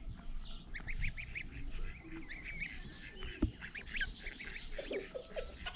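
Month-old domestic goslings peeping as they walk, a steady stream of short high calls, with a single sharp knock about three and a half seconds in.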